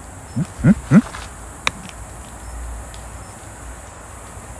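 A man's short, rising questioning 'hm?' hums, four in quick succession in the first second, followed by a single sharp click; after that only faint steady outdoor background noise.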